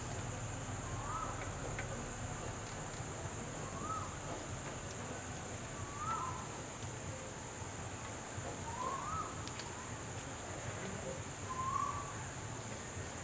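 A bird calling repeatedly, each call a short rising note, one every second or two. Under it run a steady high-pitched drone like insects and a low hum.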